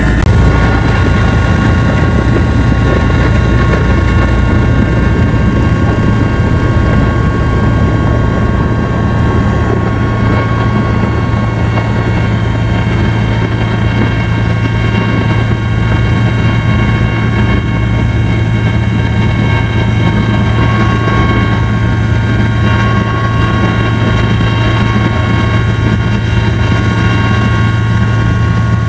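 Helicopter running steadily in flight, heard from inside the cabin: a loud, even drone with a low hum and several steady whining tones above it.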